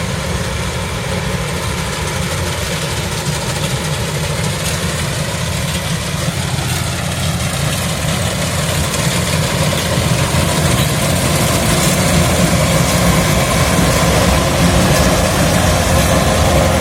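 Kubota DC-105X combine harvester's diesel engine running steadily, growing somewhat louder from about ten seconds in.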